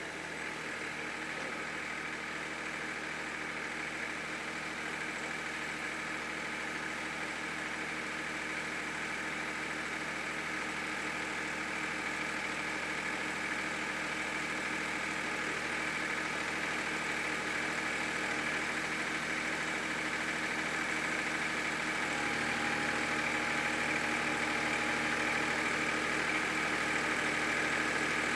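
Massey Ferguson 2605 tractor's diesel engine idling steadily, its note shifting slightly about twenty seconds in and growing gradually louder.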